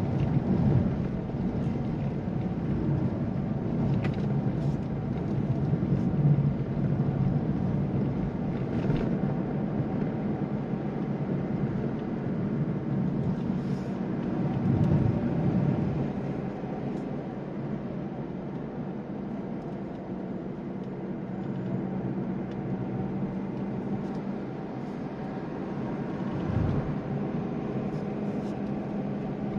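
Inside the cabin of a Mazda2 (Demio), its 1.5-litre diesel engine runs under the steady hum of tyres and road noise while driving on a mountain road. The engine note shifts around the middle, and there is a low thump near the end.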